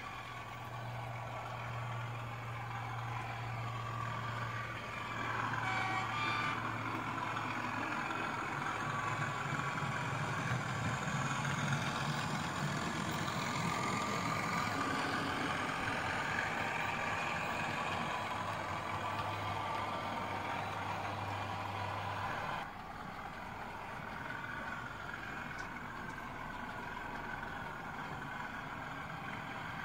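Sound-fitted OO gauge model Class 37 diesel running on a layout: the diesel engine sound from its onboard speaker over a steady hum and the rumble of wheels on model track. The sound drops suddenly about three-quarters of the way through.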